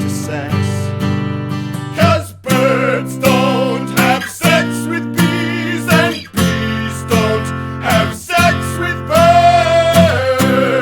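Music: strummed acoustic guitar chords with a wavering melody line carried over them from about two seconds in.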